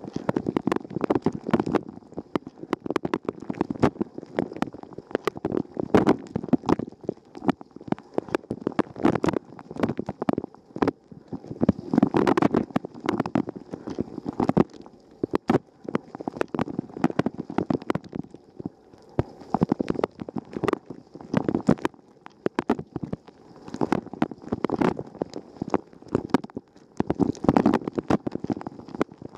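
Water from a Rosenlew dishwasher's spray arm splashing and drumming against the camera and the tub walls mid-wash, heard from inside the machine: irregular sloshing full of sharp knocks of water striking, swelling and easing every few seconds.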